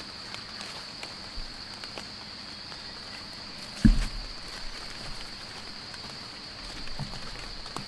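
Steady, high-pitched drone of insects such as cicadas or crickets, with scattered small ticks and one heavy thump about four seconds in.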